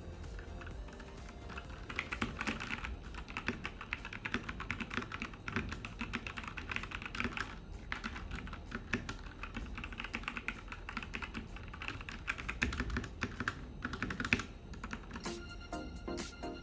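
Typing on a SteelSeries Apex 7 TKL mechanical keyboard: a fast, continuous run of key clicks. Music plays faintly underneath and comes back up near the end.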